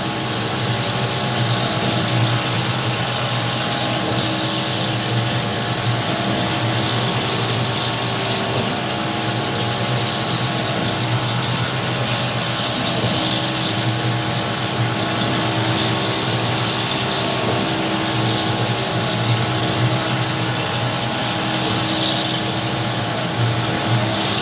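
Homemade CNC milling machine cutting a clamped plate under flood coolant: the spindle and end mill run steadily with several held tones over a low hum, and a hiss of cutting and coolant spray that swells and fades.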